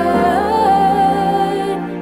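Slow gospel/neo-soul song with a long held wordless vocal note that slides up a little about half a second in, over soft sustained accompaniment.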